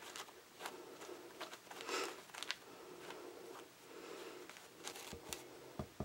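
Silicone spatula rubbing spice cake mix through a fine-mesh metal sieve: faint, uneven scratchy brushing that comes and goes, with a few light clicks near the end.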